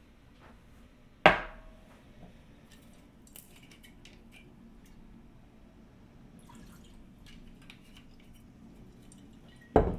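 Two sharp knocks of glass or metal barware set down, one about a second in with a brief ring and a second near the end, with light clinks and taps in between.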